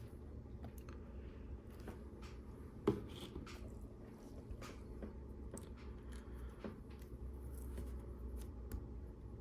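Small plastic clicks and taps of LEGO Technic pieces being handled and pushed into place, with one sharper snap just before three seconds in.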